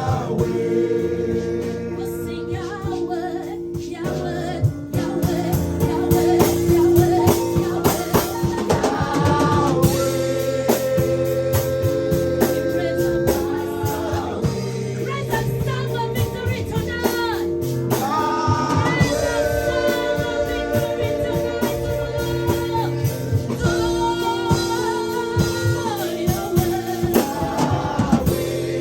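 Live gospel worship music: singing over long held chords, with percussive strikes throughout.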